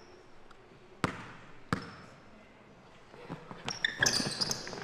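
A basketball bounced twice on a hardwood gym floor, each bounce echoing in the hall. Near the end come a flurry of sneaker squeaks and scuffs on the court.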